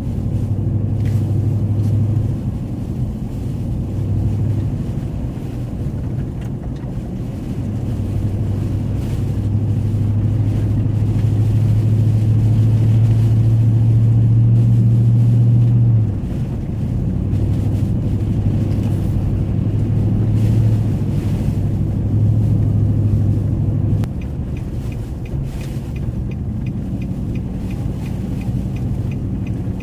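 Cabin drone of a four-wheel-drive vehicle driving on snowy roads: a steady low engine and tyre hum. The hum swells for several seconds, drops abruptly about halfway through, then eases down again a few seconds later.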